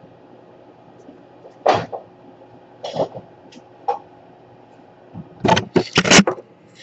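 A person coughing: single coughs about two, three and four seconds in, then a quick run of coughs near the end.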